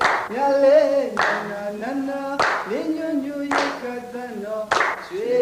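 Unaccompanied singing voices holding and sliding between notes, over a single sharp clap that repeats steadily about every 1.2 seconds.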